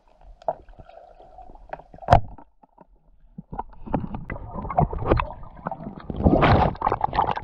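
Underwater sound picked up through a camera's waterproof housing: scattered clicks and knocks, with one sharp click about two seconds in. From about halfway on there is a louder gurgling rush of moving water.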